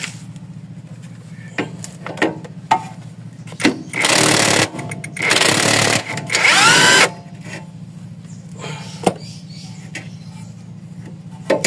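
A power tool, likely a cordless impact wrench, runs in three loud bursts starting about four seconds in, loosening the nut on the front stabiliser link. The last burst ends in a rising whine. Scattered metal clicks of tools and parts come before and after.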